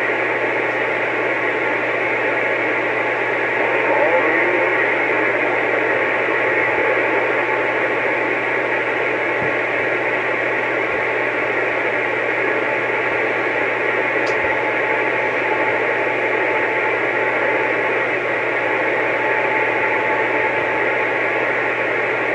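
CB radio receiver hissing with steady static through its speaker between transmissions, over a low steady hum.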